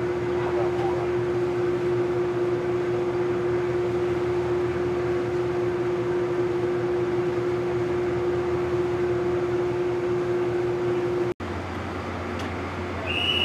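Patrol coastal ship's machinery running with a steady hum and a strong constant tone. About eleven seconds in it cuts off and gives way to a different, quieter steady hum.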